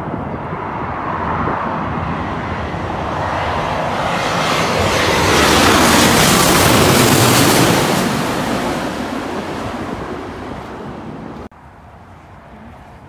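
Boeing 787-9 jetliner on final approach passing low overhead: its jet engine noise swells to a loud rush and fades away. About eleven and a half seconds in the sound cuts off abruptly to a much quieter background.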